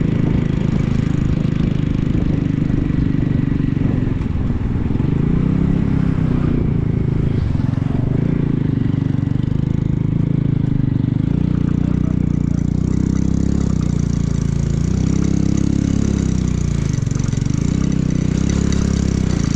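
A moving vehicle's engine running, its pitch rising and falling several times as it speeds up and slows, over a steady low rumble.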